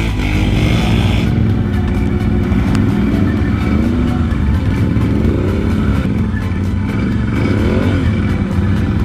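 ATV engines running, one revving up and falling back several times as a quad pushes through a mud hole.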